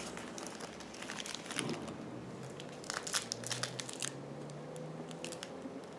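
Plastic packaging crinkling and crackling in irregular bursts as it is handled: the plastic packet holding a diamond painting kit's bags of drills.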